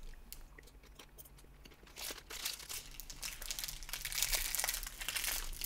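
Foil candy wrapper crinkling as it is handled, faint at first, then a dense crackling from about two seconds in.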